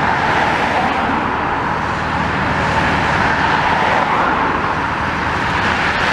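Hyundai demolition excavator's diesel engine running steadily with a low hum while its grab works the top of a brick wall, under a constant hiss; no distinct crash of falling masonry.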